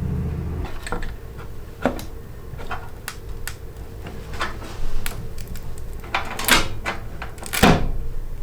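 Scattered clicks and knocks of metal and plastic computer parts being handled as a graphics card is fitted into a PC case, with two longer, louder scraping sounds near the end. A low hum stops about half a second in.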